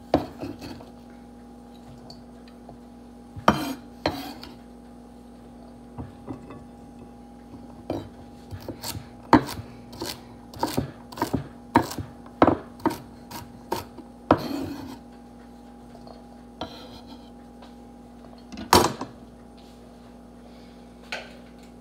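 Chef's knife chopping celery on a wooden cutting board: uneven knocks of the blade striking the board, a quick run of them in the middle, with a few single knocks before and after.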